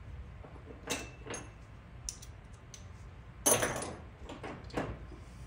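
Metal hand tools clinking against each other: a few scattered light clicks and one loud, ringing clank about three and a half seconds in.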